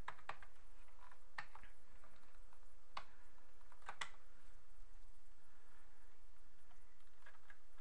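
A handful of separate computer keyboard keystrokes and mouse clicks, single sharp taps a second or so apart, over a faint steady hum.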